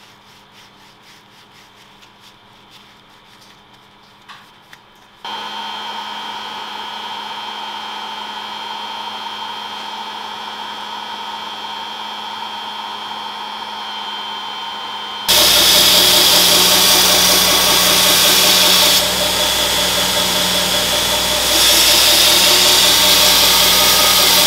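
Faint rubbing of a paper towel working balm into a leather axe handle. About five seconds in, a heat gun starts blowing with a steady hum. About fifteen seconds in, it gives way to a much louder belt grinder grinding metal and throwing sparks, which eases briefly and picks up again.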